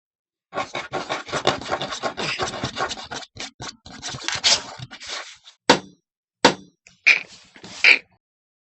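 Foley sound effects: a dense stretch of rubbing and scraping with many small clicks, then four separate sharp knocks.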